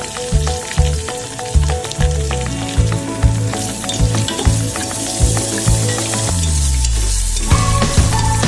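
Food frying in hot oil in a pan, sizzling steadily, under a background music track with a steady beat.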